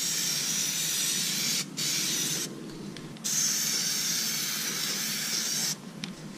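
Aerosol can of Performix Plasti Dip rubber coating spraying in three bursts of hiss: a long one, a short one about two seconds in, then a longer one of about two and a half seconds.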